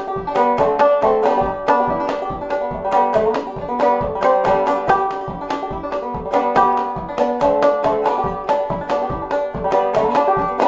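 Five-string banjo played clawhammer style in open G tuning (gDGBD), a reel picked at a quick, even pace with bright, ringing notes.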